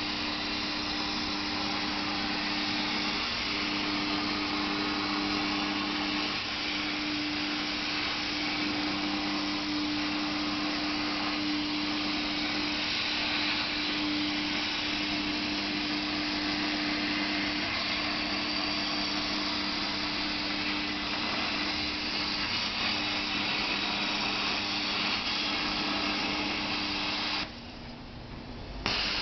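Plasma cutter running: a steady hiss with a low hum under it, which stops for about a second and a half near the end and then starts again.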